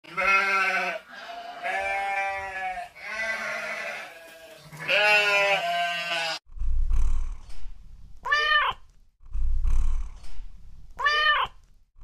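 Sheep bleating four times in long, wavering calls. About halfway through the sound changes to a cat meowing twice, short calls that rise and fall in pitch, with low rumbling noise before each meow.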